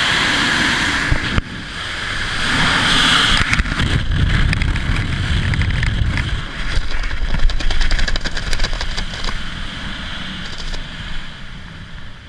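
Freefall wind rushing over a helmet-mounted camera, dropping off suddenly about a second in as the parachute is deployed. Then the opening canopy fabric flaps and crackles amid low buffeting wind, easing to softer wind under the open canopy near the end.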